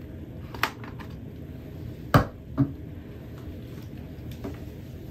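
Clicks and knocks of camera gear being handled and set down on a wooden table: a telephoto lens and a camera body. A light click about half a second in, a sharp knock just after two seconds with a smaller one soon after, and another loud knock at the very end.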